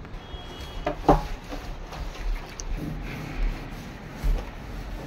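Rubbing and scraping against the inside wall of a plastic water tank while it is scrubbed clean by hand, with a few dull knocks as a person climbs in and moves about inside it.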